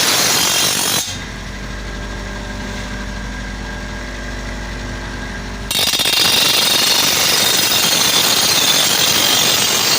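A power tool working steel, most likely an electric grinder on a blade: harsh grinding noise that drops about a second in to the motor running with a steady hum, then loud grinding again from about six seconds in.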